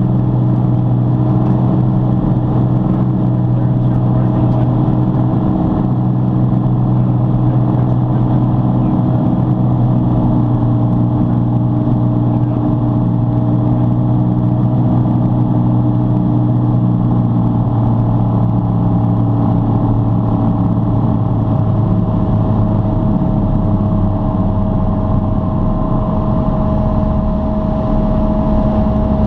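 Aircraft engine drone heard from inside the cockpit during a landing approach: a loud, steady hum with several constant low tones, which shift slightly a few seconds before the end.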